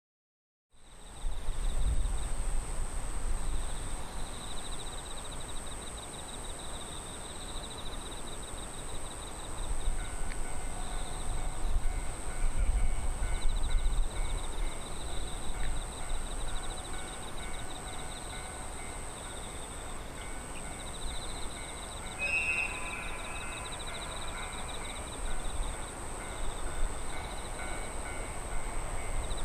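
Outdoor ambience: wind rumbling on the microphone, under a steady high drone and a pulsing high trill that comes and goes. Faint steady tones join about ten seconds in, with a short chirp a little past twenty seconds.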